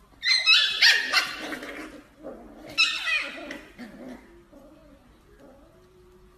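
Puppies yipping and squealing while play-fighting, in two loud bursts of high-pitched cries that step downward in pitch, the first longer than the second.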